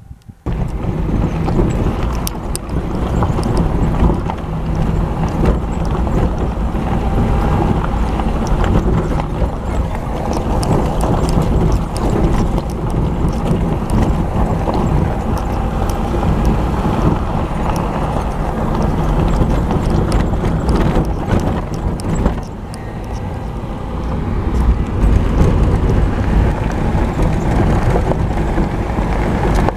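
4x4 vehicle driving along a rough dirt trail: steady low engine and tyre rumble with frequent knocking and rattling from the bouncing body and suspension. It starts abruptly just after the beginning and eases briefly about two-thirds of the way through.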